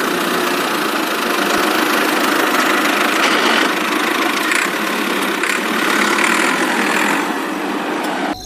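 Tractor engine running steadily, starting and stopping abruptly as an edited-in engine sound for a toy tractor.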